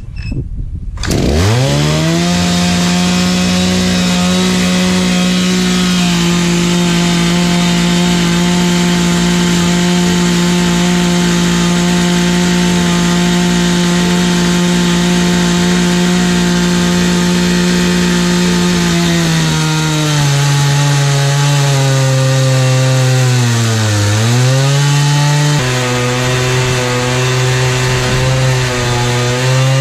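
Stihl MS460 two-stroke chainsaw on an Alaskan-style chainsaw mill ripping through a log. It revs up to full throttle about a second in and holds a high, steady pitch. About two-thirds of the way through the pitch drops as the engine labours under heavier load in the cut, dips sharply once and recovers.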